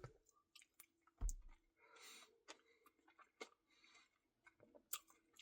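Near silence, with a soft low thump about a second in and a few faint clicks after it.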